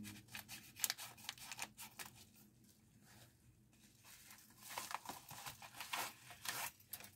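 Scissors snipping open a plastic mailer bag, then the packaging crinkling and rustling as the contents are pulled out in the second half.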